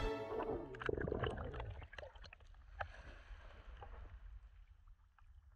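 Faint water sloshing and gurgling with a low rumble and many scattered small clicks and crackles.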